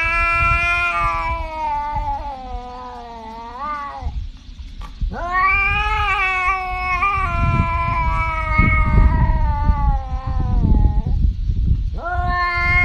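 Tabby cat yowling in long drawn-out caterwauls: one call of about four seconds, a longer one of about six seconds, and a third starting near the end.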